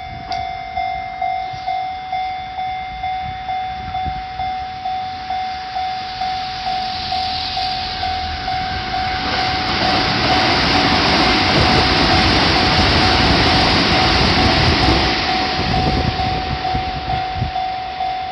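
Japanese level-crossing warning bell ringing over and over, about one and a half dings a second, while a train runs past over the crossing; the train's rumble and rush build about seven seconds in, are loudest in the middle and fade near the end.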